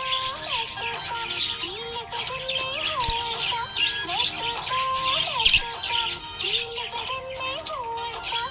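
Budgerigars chirping rapidly and continuously over a background music track with a gliding melody.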